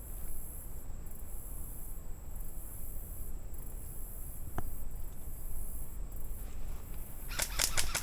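Quiet outdoor background with a steady high hiss and a single sharp click about halfway. In the last half-second an airsoft rifle starts firing rapidly, a quick string of sharp shots.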